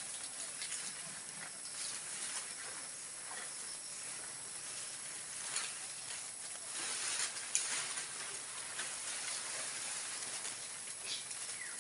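Calamansi tree leaves and branches rustling as fruit is picked among them: a steady hiss of leaf noise with a few sharper crackles.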